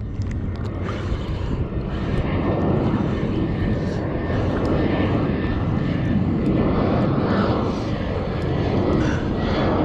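Wind buffeting the microphone: a steady, rumbling rush heaviest in the low end.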